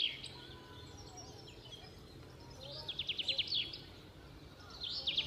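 A songbird singing: a quick run of about a dozen sharp, falling notes lasting about a second, heard once midway and starting again near the end. A faint low hum lies underneath.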